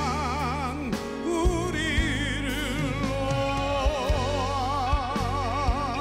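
Slow ballad played by a live band: several sustained melody lines with vibrato over a steady bass, with occasional drum hits.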